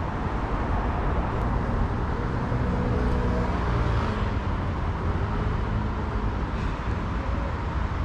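Steady outdoor road-traffic noise, an even hum with a heavy low rumble.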